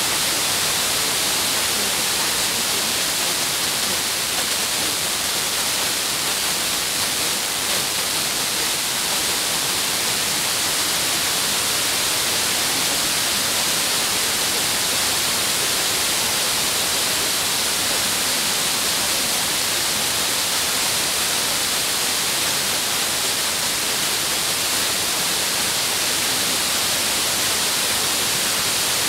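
FM radio receiver tuned to 56.4 MHz giving a steady hiss of static, with no programme audible: the long-distance F2-layer signal has faded down into the noise.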